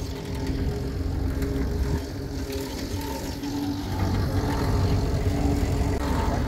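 Fishing boat's engine running steadily, a low rumbling drone with a few held tones over it.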